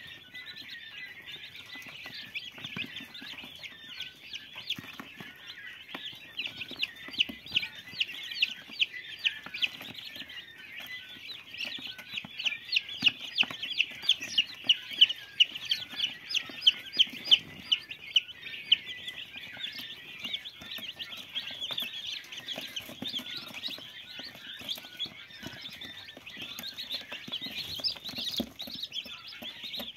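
A brood of young chicks peeping continuously, many high chirps overlapping, with a run of loud, rapid peeps in the middle.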